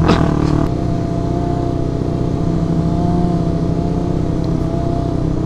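Motorcycle engine running at a steady cruise with an even, unchanging pitch, heard through a helmet microphone.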